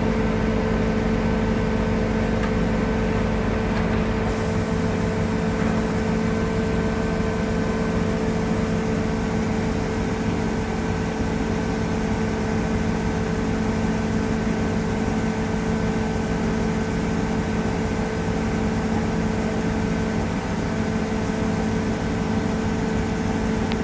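Construction crane's engine running steadily, a constant mechanical drone with a steady hum.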